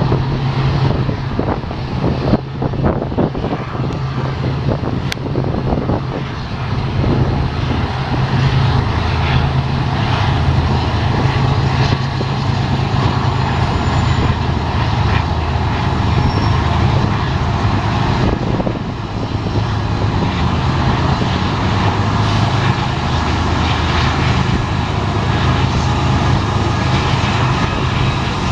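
BNSF freight train's diesel locomotives running with a steady low engine drone, over the rumble of the train, with a cluster of clanks in the first few seconds.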